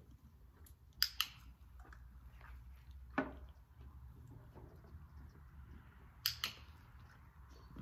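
A handheld training clicker snaps twice, about a second in and again after six seconds, each a quick double click-clack marking the horse lifting its head. Between the clicks a horse chews a hay pellet from its feed tub, with a single knock about three seconds in.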